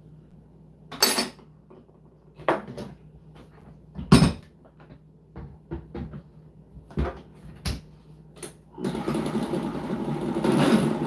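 Several sharp knocks and clicks as the blender jar and its lid are handled and set in place, then, about nine seconds in, a countertop blender motor starts and runs steadily, blending a liquid mix of plant milk, cauliflower and tapioca flour.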